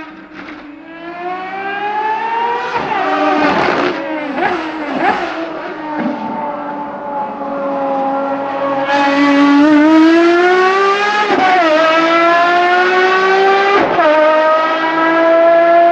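Ferrari FXX Evoluzione's V12 engine at high revs on track. The pitch rises and then falls in steps with sharp blips, like downshifts under braking, holds fairly steady through a corner, then climbs hard under acceleration with upshifts about 11 and 14 seconds in.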